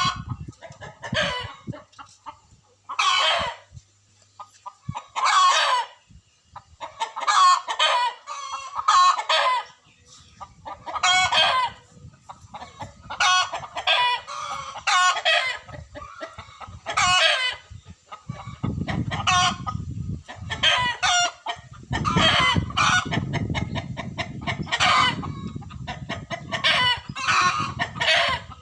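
Chickens calling over and over, a rooster among them, in short pitched calls of about a second each with brief gaps. A low rumble joins in from a little past the middle.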